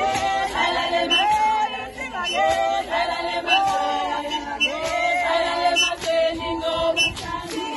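A group of voices singing a song together in a chant-like melody, with a sharp beat about once a second.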